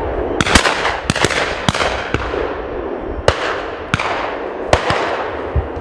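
Shotguns firing in quick, uneven succession from several guns, about ten shots, some close and loud and others fainter and further off. Each shot rings out with a long fading echo.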